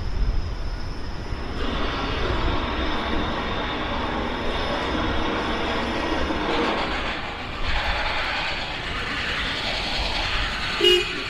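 Traffic on the elevated road overhead, a continuous rumble that swells and fades as vehicles pass over the deck. Near the end there is a single sharp clank.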